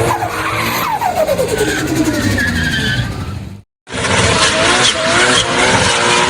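Car engine revving with tyres squealing, in two separate clips: the first with repeated falling sweeps in pitch as the revs drop, then a sudden cut to silence a little past halfway, and a second clip with a wavering, sustained tyre squeal over the engine.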